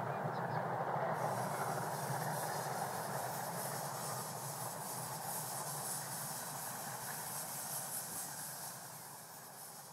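A small 10¼-inch-gauge steam locomotive hauling its train: steady running noise with a hiss coming in about a second in, fading slowly as it draws away.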